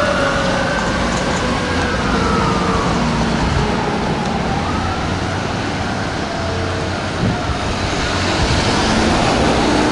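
Fire apparatus sirens fading as the trucks drive away. A Federal Q2B mechanical siren winds down slowly in pitch over the first couple of seconds, and other siren tones glide up and down in the middle, over steady road and engine noise.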